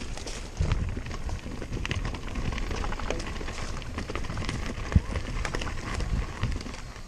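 Giant Glory downhill mountain bike clattering over rough trail: a dense run of knocks and rattles, with one sharp bang about five seconds in.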